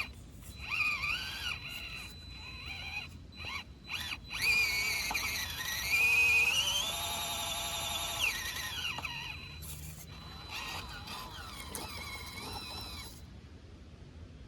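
Electric motor and gearbox whine of a 1:18-scale FMS FCX18 Chevrolet K10 RC rock crawler, starting and stopping and rising and falling in pitch with the throttle. The whine is loudest and highest about halfway through, then falls away.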